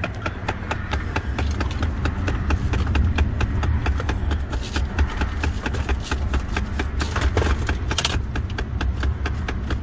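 Dash HVAC door actuator in a 2011 Ford F-150 clicking rapidly and evenly, about seven clicks a second, over a low steady hum. The noise is so annoying that the harness feeding it was probably unplugged to stop it.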